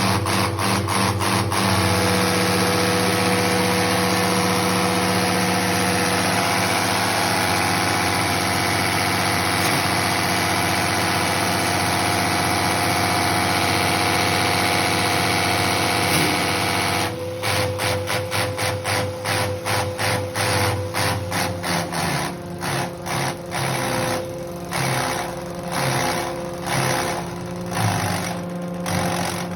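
A machine running steadily with a constant hum. About halfway through it turns into a fast, even pulsing, which slows and becomes uneven near the end.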